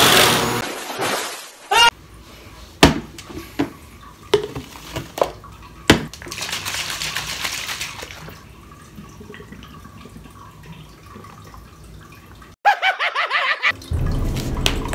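A canister vacuum cleaner running, cut off within the first second. Then separate clicks and knocks of a cup and supplement tubs being handled, with a stretch of splashing water about six to eight seconds in. Background music starts near the end.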